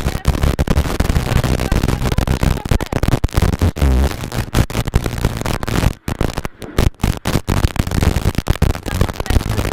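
Rally car at full effort, heard from inside the cockpit: the engine running hard under a dense wash of road and wind noise, with frequent sharp crackles. The sound drops away abruptly a few times about six to seven and a half seconds in.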